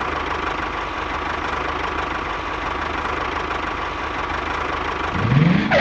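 A small engine running steadily with a constant low rumble, as if idling. Near the end a short sound rises in pitch.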